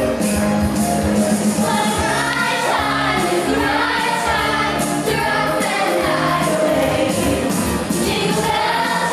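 Mixed choir of children's and adult voices singing a song together over accompanying music.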